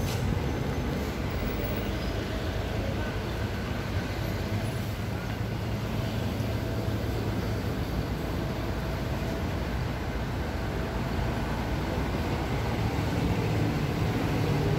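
City street ambience: a steady low rumble of road traffic and general urban background noise.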